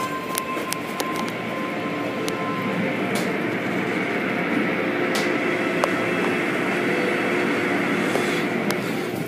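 Automatic car wash running, heard from inside the car: a steady rush of spraying water and cloth strips and brushes working over the car, with a few scattered sharp clicks against the glass.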